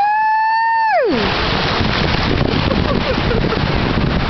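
A single high-pitched squealing call that rises, holds for about a second and drops away, then the steady wash of shallow surf with wind buffeting the microphone.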